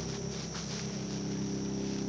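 A dog snoring: a steady, low-pitched snore.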